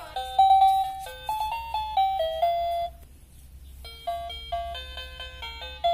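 Electronic melody from a children's toy laptop, a tune of clean beeping notes that stops about three seconds in and starts again about a second later.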